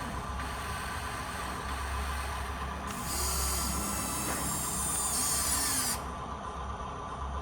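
Small electric motors and plastic gearboxes of a radio-controlled construction model whirring, with a higher, louder whine from about three seconds in until about six seconds, its pitch gliding as the motors change speed.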